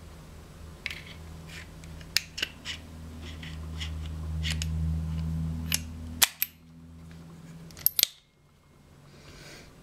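Small metallic clicks of LEP cartridges being pushed into the swung-out cylinder of an ME Bull-Barrel air revolver, then the cylinder snapping shut a little after six seconds, over a low hum that cuts off there. About eight seconds in, two sharp clicks as the hammer is cocked.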